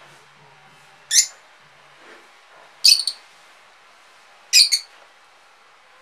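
Blue masked lovebirds giving short, sharp, high-pitched chirps: one about a second in, then two quick doubled calls at about three and four and a half seconds.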